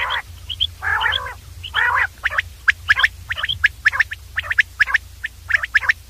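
Common quail calling: three raspy, buzzy notes in the first two seconds, then a quick, irregular run of short, sharp whistled notes, over a steady low hum.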